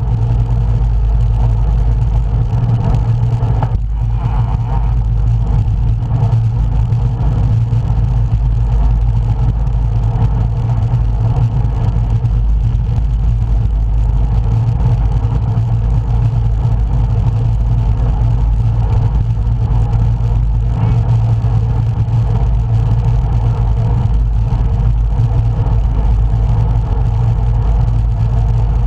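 Wind rushing over a camera microphone on a moving road bike: a loud, steady low rumble.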